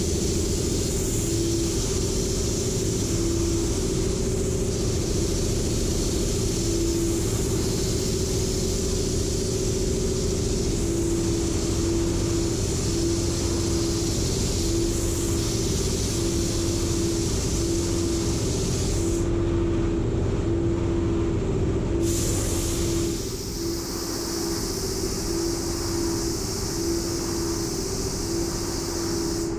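Fan running steadily, with a low rumble, a tone that pulses on and off about once a second, and a high hiss over the top that drops away about three quarters of the way through.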